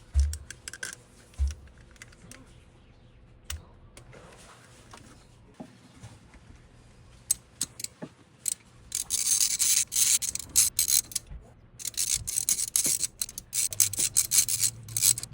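Hands-on mechanical work: a couple of knocks early, scattered clicks, then two long spells of scraping and rubbing in the second half.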